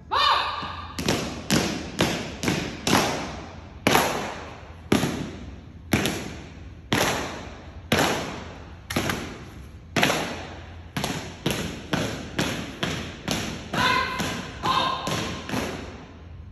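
A drill team's synchronized stomps and heel strikes on a hard floor, sharp thuds in an uneven marching rhythm of about one to two a second, each ringing out with a long echo in a large hall. A voice calls out briefly near the end.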